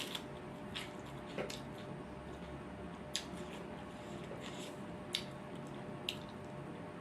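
Close-miked eating sounds: wet chewing and squishing of rice and pork, with about six sharp mouth smacks spaced a second or two apart.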